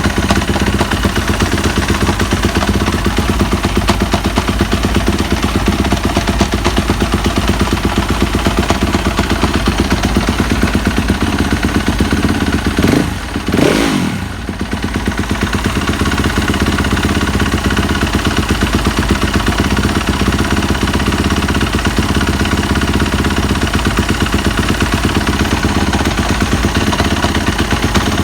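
2015 Yamaha YZ250F's single-cylinder four-stroke engine idling with a knocking, rattling noise whose cause the owner cannot pin down. About halfway through the throttle is blipped once, the pitch rising and falling back to idle.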